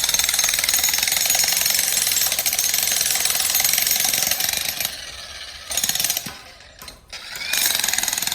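Jackhammer breaking up rock with a fast, steady run of blows. It stops twice for a moment, about five seconds in and again around six and a half seconds, then starts hammering again.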